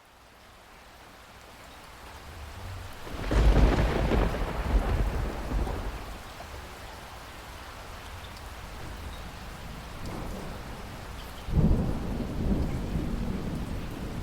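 Steady heavy rain fading in, with two loud claps of thunder: the first about three seconds in, rumbling for a few seconds before dying away, and a second sharp-onset clap near the end that rolls on.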